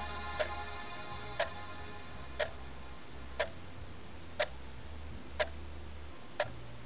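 A clock ticking once a second, seven evenly spaced ticks over a faint low hum.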